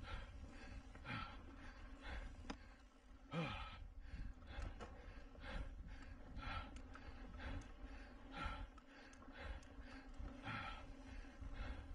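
A mountain biker breathing hard and rhythmically under race effort, with heavy breaths at about one a second. Underneath is a steady low rumble of wind and riding noise.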